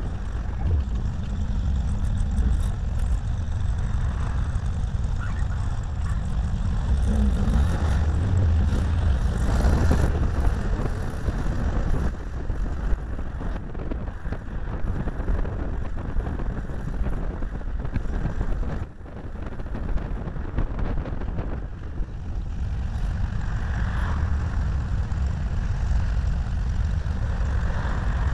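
Driving noise from a small camera taped to the bonnet of a moving air-cooled VW Beetle: wind buffeting the microphone over a steady low rumble of car and road. The rumble dips briefly about two-thirds of the way through, then comes back.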